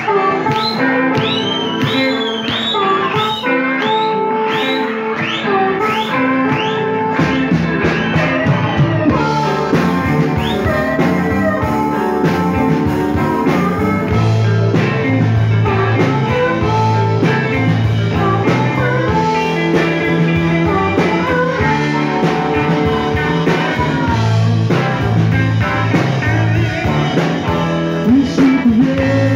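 Rock band playing live: electric guitars, bass, drums and harmonica. Repeated bent notes fill the opening, and the low end comes in heavily about seven seconds in.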